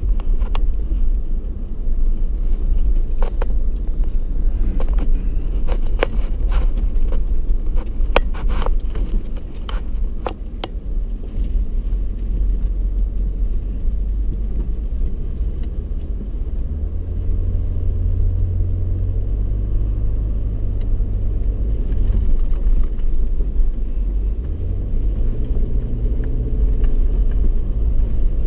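Car driving over soft beach sand, heard from inside the cabin: a steady low rumble of engine and tyres. Sharp clicks and knocks come through the first ten seconds or so, and a steadier low engine hum sets in after about seventeen seconds.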